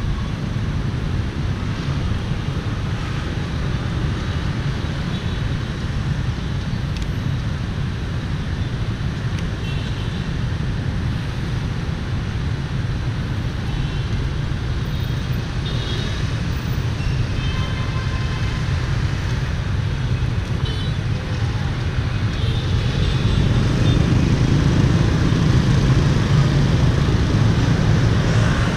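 Steady street traffic of motorbikes and cars passing, a continuous low rumble that grows louder near the end.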